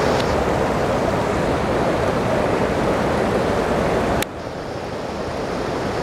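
Floodwater rushing down a street, a steady roar of water. About four seconds in there is a click and the level drops suddenly, then slowly builds again.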